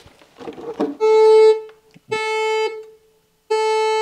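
Metal detector sounding three steady buzzing tones, each about half a second long, signalling buried metal under the detector. Soft scraping in the soil comes just before the first tone.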